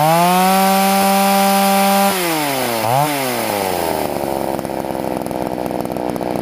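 Poulan two-stroke chainsaw engine revved to full throttle and held for about two seconds, then dropped back, blipped once more, and left to idle steadily, being warmed up to running temperature before carburetor tuning.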